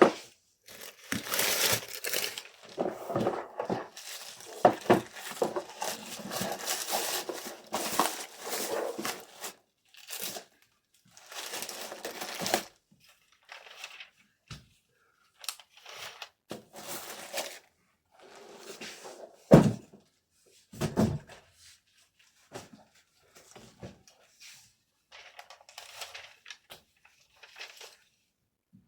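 Packaging material being handled while an order is packed: paper or plastic wrap crinkling and tearing in irregular rustling bursts, busiest in the first part, then sparser handling sounds with two dull knocks about two-thirds of the way through.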